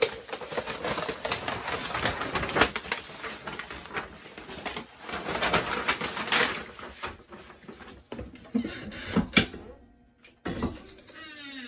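Paper and fabric rustling and crinkling as a sublimation print and stole are laid out on a heat press platen. A sharp click comes a little over 9 s in, and a short squeak that falls in pitch comes near the end as the press's upper platen is swung down.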